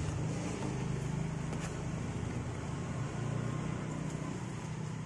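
An engine running steadily with a low hum, with a faint click about a second and a half in.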